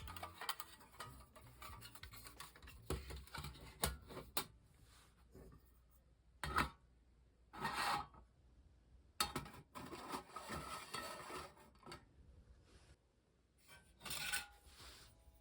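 Thin metal parts being handled: irregular scraping and rubbing with light clinks, in several short bursts.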